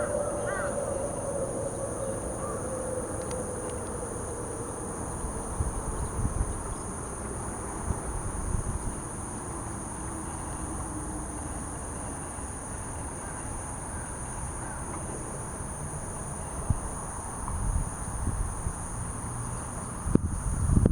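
Insects trilling steadily at a high, constant pitch, with a low drone that falls slowly in pitch over the first half and a few faint short chirps near the start; wind rumbles on the microphone near the end.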